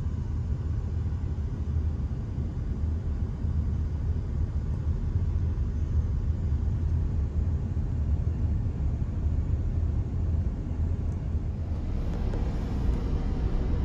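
Steady low outdoor rumble with no distinct events, growing slightly hissier about twelve seconds in.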